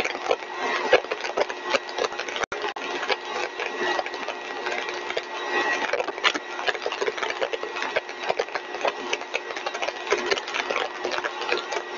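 A single-stage rotor-and-stator compressor rig running steadily at full design speed: an even machine roar with a steady hum and a fine crackling rattle through it. The sound cuts out for an instant about two and a half seconds in.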